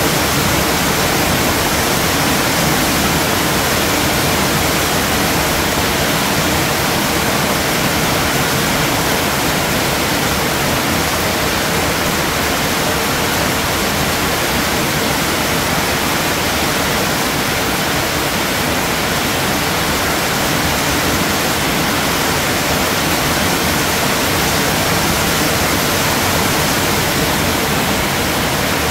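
Steady rain falling: an even, unbroken hiss with no separate drops or gusts standing out.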